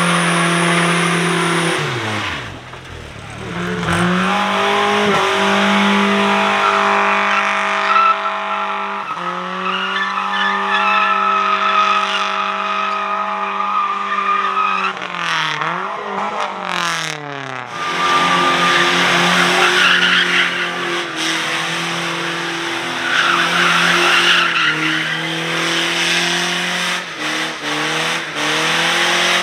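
Vehicle engine running at a steady speed. Its pitch drops sharply as it slows about two seconds in and again around fifteen to eighteen seconds, climbing back after each drop.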